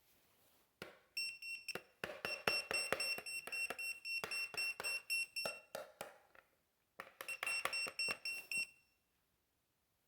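Electronic beeper sounding a rapid run of short high-pitched beeps, several a second, for about four seconds, then a second shorter run about a second later, with sharp clicks among the beeps.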